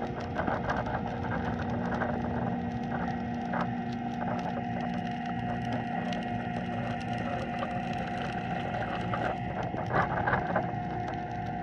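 Underwater sound picked up by a submerged camera: dense crackling clicks over a steady hum, with a few louder knocks about ten seconds in.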